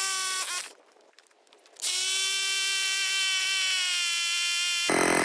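A power drill's motor whining in two runs: a short one at the start, then after a second's pause a longer run of about three seconds whose pitch sags slightly under load. Near the end it gives way abruptly to an engine running.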